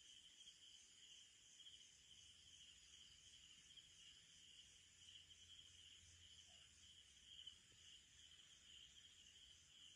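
Faint chorus of night insects: a steady, high-pitched trilling with a quick pulsing beat.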